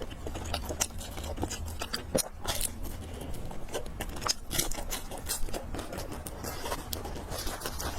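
A person eating close to the microphone: chewing, with many small sharp clicks and scrapes throughout, over a steady low hum.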